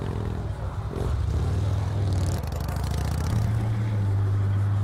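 Engines of a touring motorcycle and classic muscle cars running, a low steady note that gets louder about three seconds in.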